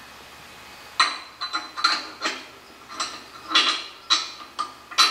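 A small steel cable pulley and its bolt clinking and rattling against a welded steel bracket as they are fitted in by hand: about ten sharp metallic clinks, starting about a second in.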